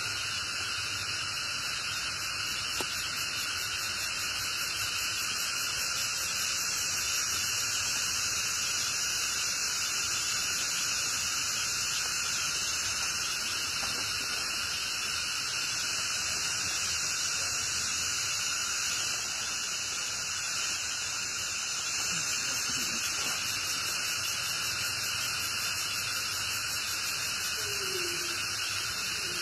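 Steady, even hiss with no change in level, with a faint, short squeak now and then.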